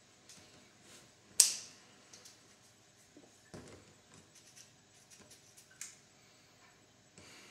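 Quiet room with scattered soft rustles and small clicks, and one sharp, loud click about a second and a half in.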